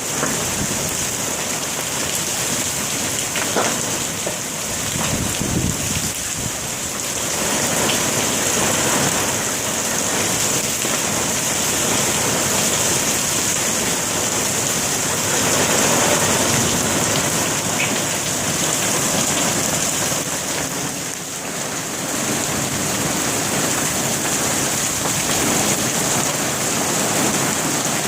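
Hail and rain coming down hard: a dense, steady din of impacts with a few sharper single hits. A low rumble about five seconds in.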